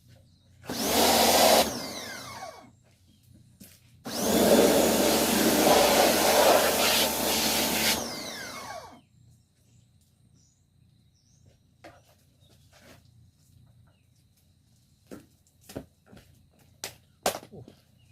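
Pressure cleaner spraying in two bursts, the first about a second long and the second about four seconds, each trailing off as the trigger is let go. Scattered light knocks follow in the quiet.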